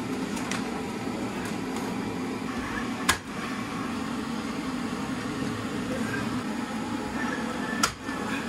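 DeWalt cordless staple gun firing twice, about five seconds apart, to fasten plastic sheeting to a wood board: two sharp snaps over a steady low hum.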